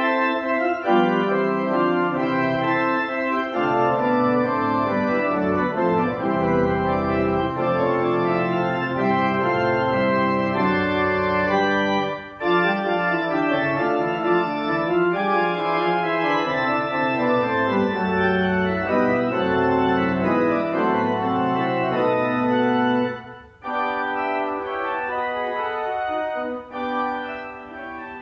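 Aeolian-Skinner pipe organ playing loud, sustained full chords over deep bass notes. The music breaks off briefly about twelve seconds in, then drops to a softer, lighter registration near the end.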